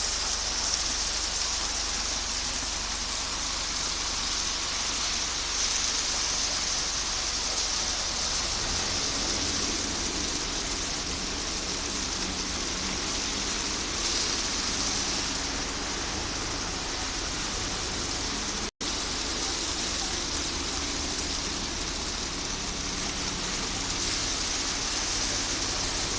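Concrete mixer running steadily: a low engine drone under a loud, even hiss. The sound drops out for a split second about three-quarters of the way through.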